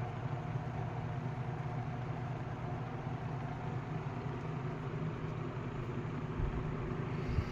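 1950s Kenmore automatic box fan with a GE motor running steadily on low speed: an even motor hum under the whoosh of the blades. A couple of low bumps come near the end.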